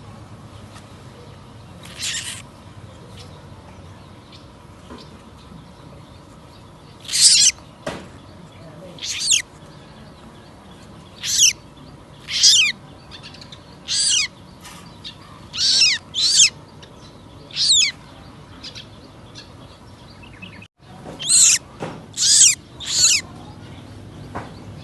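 Young birds giving about a dozen short, harsh, high-pitched screeching calls, each a fraction of a second long and falling in pitch at its end, spaced a few seconds apart and sometimes in quick pairs.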